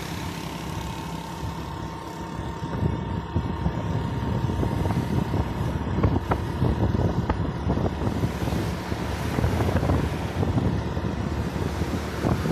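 Wind buffeting the microphone over road and engine noise, recorded from a vehicle moving along a city road, with a thin steady whine through the first part.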